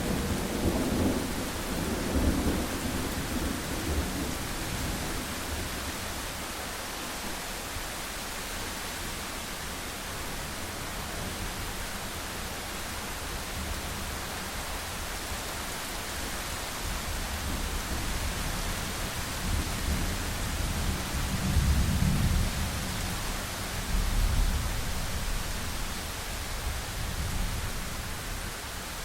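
Thunderstorm: steady rain hiss with rolling thunder rumbles, one at the start and a stronger one about three quarters of the way through.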